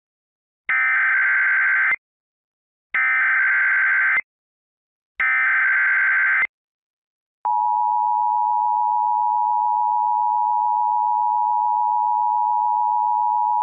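Emergency Alert System opening: three short bursts of SAME header data, a warbling digital screech, each about a second long with a short gap between, then after a brief pause the steady attention tone starts and holds.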